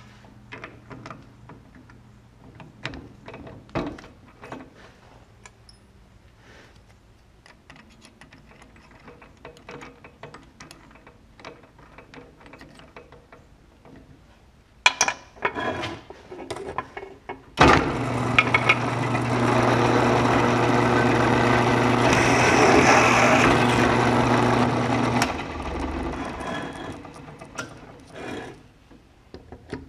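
Bench drill press starting up and drilling a 13/64-inch tap hole through a small metal latch part held in a vise. It runs steadily for about seven seconds, then is switched off and winds down. Before it starts there are quiet clicks and rattles of the bit being fitted and tightened in the chuck, with a few louder knocks just before start-up.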